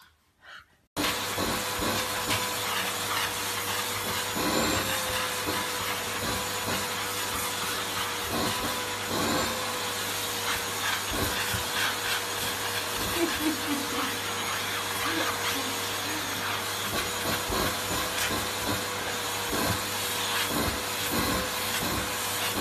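Vacuum cleaner running steadily, starting about a second in, its hose nozzle being run over a French bulldog's coat.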